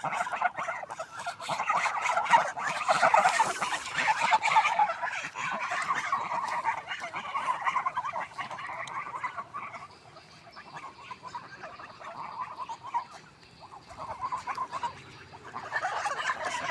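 Swans calling: a dense run of overlapping honking calls that eases off about two-thirds of the way through and builds up again near the end.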